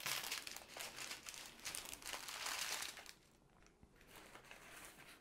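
Thin plastic bags of diamond-painting drills crinkling as a strip of them is handled. The crinkling is loudest for the first three seconds, then fainter.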